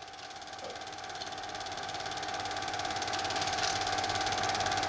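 Home-movie film projector running, a rapid, even mechanical clatter with a steady hum, growing gradually louder.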